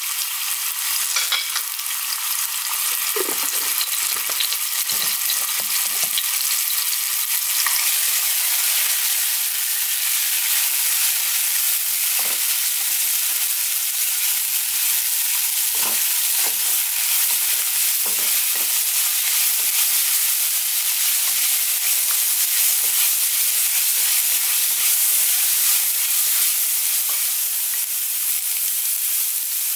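Minced garlic sizzling steadily in hot oil in a nonstick frying pan, with a spatula now and then knocking and scraping against the pan as it is stirred.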